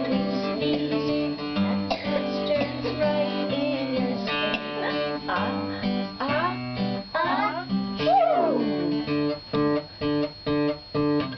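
Acoustic guitar strumming the song's accompaniment, ending in a run of short, clipped strums.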